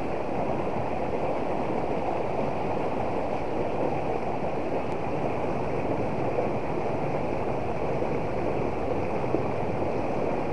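Shallow rocky river rushing over boulders and small rapids: a steady, even rush of water.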